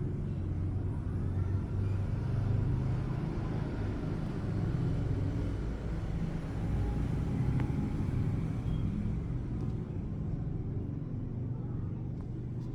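Steady low rumble, mostly deep in pitch and fairly even in level, with no distinct events.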